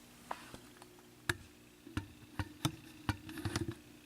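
Light clicks and knocks of a thermos and coffee-maker parts being handled, about eight spread unevenly over four seconds, over a faint steady low hum.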